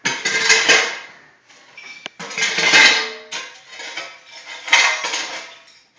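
Tile being busted up: hard pieces crack and clatter with a clinking, dish-like ring in repeated bursts, about one a second, with a sharp knock about two seconds in.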